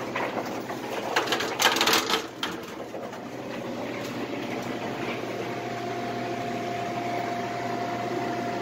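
Condenser fan of a commercial refrigerator's condensing unit running with a steady hum. Knocks and rustles of handling come about one to two and a half seconds in, and a steady whine joins about halfway through.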